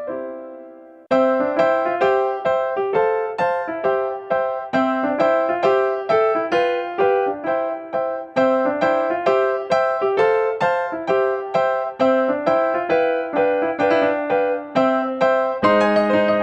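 Background music: a light keyboard tune of quick, evenly paced notes with short rising runs. A held chord fades out at the start and the tune comes back sharply about a second in.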